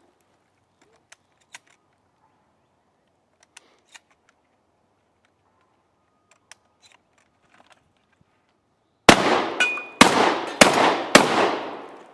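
Pump-action shotgun reloaded by hand, faint clicks of shells and the action over several seconds, then four loud shotgun blasts in quick succession, well under a second apart, starting about nine seconds in.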